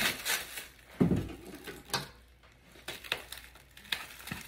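Clear plastic stretch wrap on a shipping box crinkling as it is handled and cut with scissors, in scattered short crackles and snips. A low thump comes about a second in.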